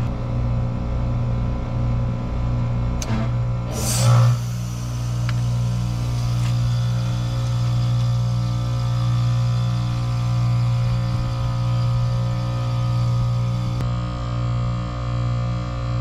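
Heat pump outdoor unit running with a steady compressor hum while being forced through defrost. About three seconds in comes a click, and just after it a short, loud rush of refrigerant as the reversing valve shifts over.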